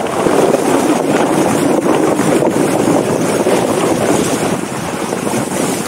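Water splashing and rushing against the wheel and body of an open safari jeep fording a shallow stream, a loud, steady wash with wind buffeting the microphone.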